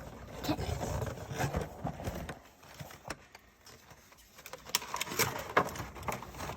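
Scattered clicks and taps of a Funko Pop box and its plastic packaging being handled and opened, busier at the start and again in the second half with a quieter pause in the middle.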